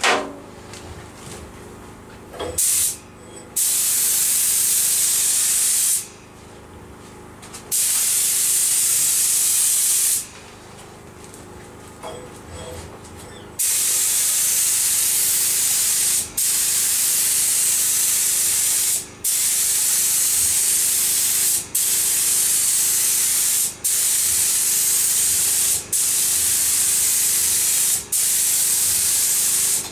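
Compressed-air spray gun spraying 2K acrylic single-stage paint for a light first guide coat: a loud hiss in about ten bursts, one per trigger pull and pass, with short gaps that come more often in the second half. A sharp knock comes right at the start.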